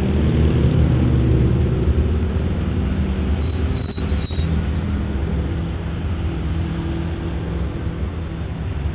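Cars, SUVs and a pickup truck passing close by at slow procession speed, one after another: engines running low with tyre noise on asphalt, fading slightly as the nearest vehicles move off.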